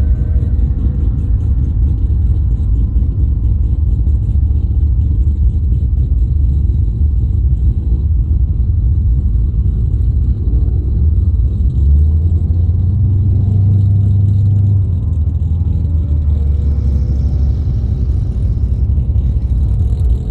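Holden VX Commodore SS's 5.7-litre LS1 V8 with an aftermarket exhaust, running at low speed with a steady low rumble. About twelve seconds in, the drone grows louder for a few seconds, then settles back.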